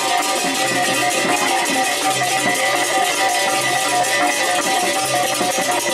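Traditional ensemble music: a quick repeating melody of short ringing notes over a dense high clatter, with a low tone pulsing on and off.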